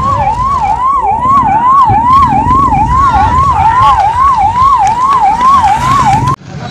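Emergency-vehicle siren sweeping rapidly up and down, about two and a half cycles a second, over a heavy low rumbling noise. Both cut off abruptly near the end.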